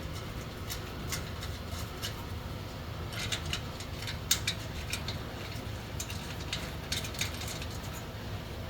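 Scattered light metal clicks and clinks as hand tools and exhaust parts are handled, over a steady low hum.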